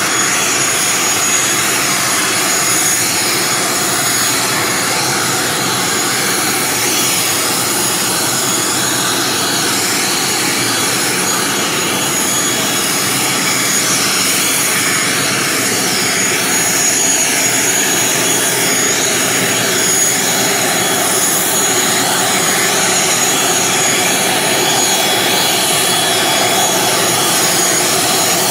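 Turboprop engine of an ATR 72 airliner running on the ground: a loud, steady rush of engine and propeller noise with a thin, steady high whine above it.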